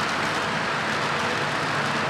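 O-gauge model freight cars rolling on three-rail track: a steady, even rolling noise of metal wheels on rails, with no clear chuff or beat.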